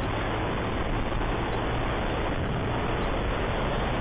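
Motorcycle riding at speed: a steady rush of wind and road noise over the microphone with the bike's engine running underneath, holding even throughout.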